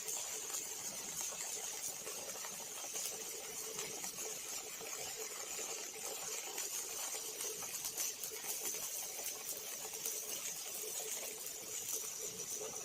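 Robotic arc welding on an OTC welding robot: a steady crackling hiss with a thin high whine, no pauses.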